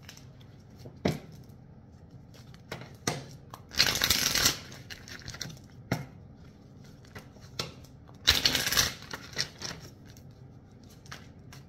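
Deck of tarot cards being shuffled by hand: two longer rustling bursts of the cards, about four seconds in and again after eight seconds, among scattered sharp taps and clicks of the cards.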